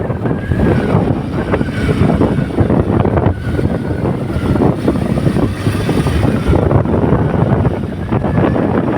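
A vehicle driving along a rough mountain road, its running noise mixed with wind buffeting the microphone and a steady clatter of small knocks.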